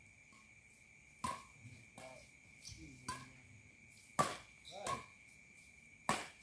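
Badminton rally: racquets striking a shuttlecock back and forth, about five sharp smacks a second or so apart. A steady high insect trill runs underneath.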